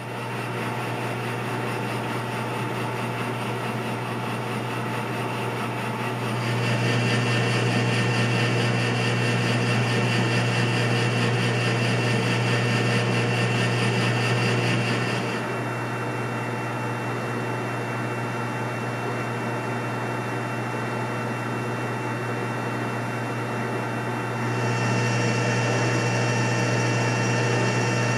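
Precision Matthews PM-1440GT metal lathe running while facing and turning down a chunk of drawn-over-mandrel steel tubing: a steady hum and gear whine. It gets louder for a stretch in the middle and again near the end.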